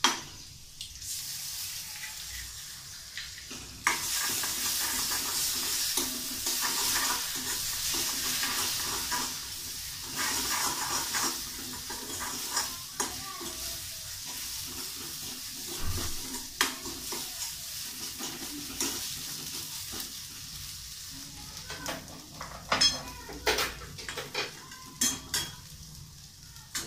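An egg frying in hot oil with shallots and green chilli, sizzling steadily while a spoon stirs and scrapes it around the pan to scramble it. The sizzle gets much louder about four seconds in, with repeated clicks of the spoon against the pan throughout.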